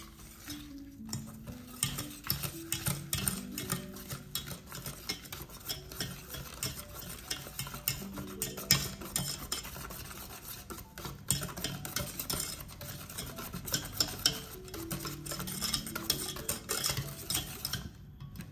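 Wire balloon whisk beating a thick pudding mixture in a stainless steel saucepan: quick, uneven clicking and scraping of the wires against the pot's sides and base, starting about a second in.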